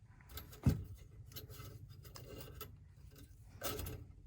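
Handling noises from unhooking a gas line at a furnace: scattered light clicks and scraping, a sharper knock less than a second in, and a short scraping rustle near the end.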